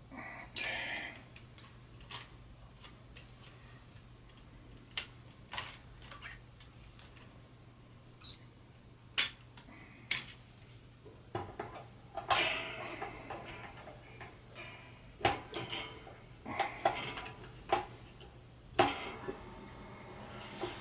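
Hard plastic parts being handled: scattered clicks, knocks and short clattering rattles, with a few sharper taps, over a faint steady low hum.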